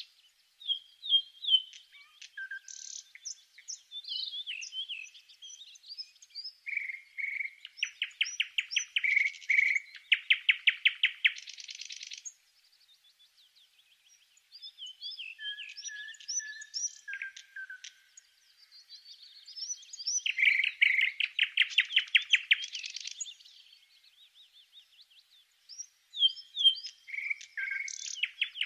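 A songbird singing in long phrases of quick chirps, short sliding whistles and fast rattling trills, with brief pauses between phrases.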